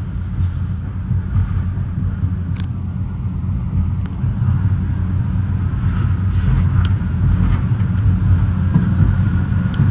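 Metra commuter train running along the track: a steady low rumble of wheels on rail, getting slightly louder, with a few faint clicks.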